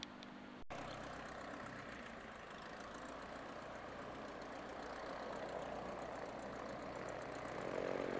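A propeller aircraft's engine running steadily at low power nearby, getting louder toward the end. It starts abruptly about a second in.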